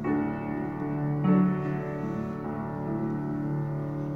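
Slow, gentle piano accompaniment playing held chords, with a new chord about every second and a quarter.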